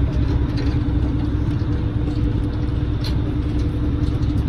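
Boat's engine running steadily under way: a loud, even low rumble with a constant hum.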